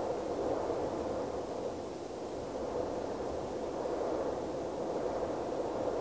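Steady rushing ambient noise, even and unbroken, with no distinct bird calls.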